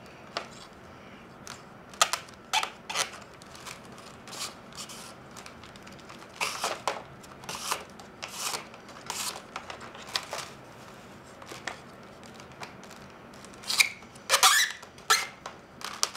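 Flat reed lashing being threaded through a reed basket's weave and pulled tight around the rim, giving irregular short rustles, creaks and clicks. A quick cluster of louder ones comes near the end.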